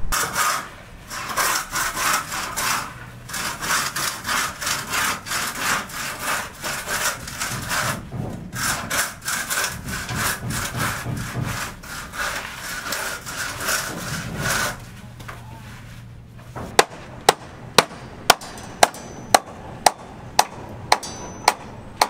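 Rhythmic rasping strokes of hand work on a building site, about two a second, with a short pause about eight seconds in, dying away around fifteen seconds. From about seventeen seconds, sharp light taps follow at a steady pace of about two a second.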